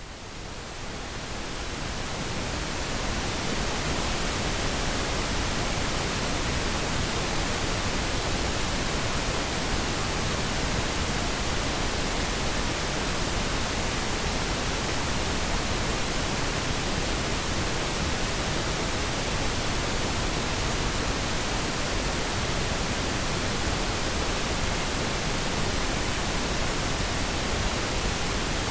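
Pink noise test signal for audio calibration: an even, steady hiss across the whole range, fading in over the first few seconds and then holding at a constant level.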